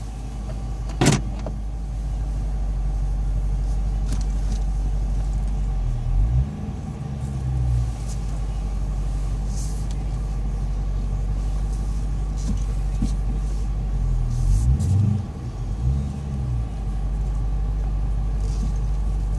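Dodge Challenger's engine idling steadily, with no seatbelt chime sounding: a sign the chime has been disabled. A sharp click comes about a second in, and the engine note briefly wavers twice.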